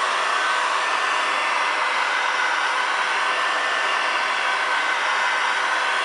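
Kobalt electric heat gun running steadily, its fan blowing a constant hiss of hot air with a faint whine, as it preheats a plastic door handle before vinyl wrapping.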